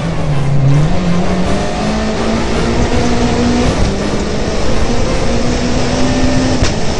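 Rally car engine heard from inside the cockpit, pulling through the gears: the engine note climbs, drops at a gear change about halfway through, climbs again and drops at another shift near the end, over constant tyre and wind noise.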